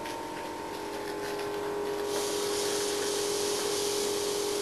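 Steam hissing from a live steam model traction engine, starting about two seconds in and holding steady over a constant hum.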